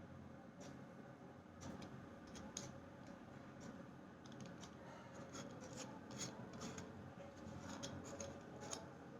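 Scattered light clicks and rubbing from small hard objects being handled, under a faint steady hum.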